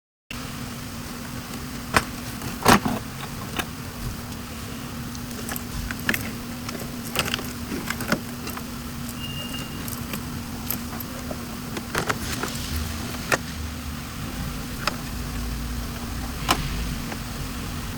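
Scattered sharp clicks and metallic clinks of hand tools and parts being handled during work on a car's ABS module, over a steady low hum.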